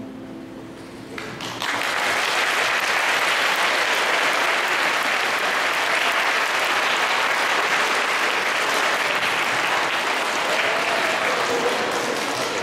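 Audience applauding. The clapping starts about a second and a half in and keeps up steadily.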